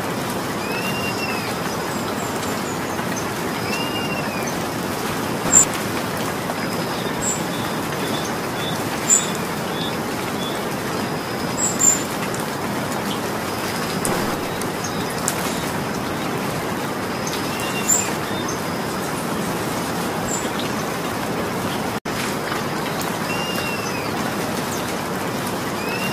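Steady rain falling, with a bird repeating a short arched call every few seconds over it. A handful of brief, sharp high-pitched chirps stand out above the rain, and the sound drops out for an instant about 22 seconds in.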